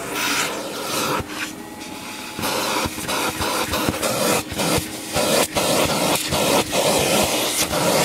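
Vacuum cleaner running with its suction turned down, its crevice tool sucking dust off a foam pre-motor filter. The steady hiss of the airflow flickers and dips rapidly from about two and a half seconds in as the nozzle is worked across the filter.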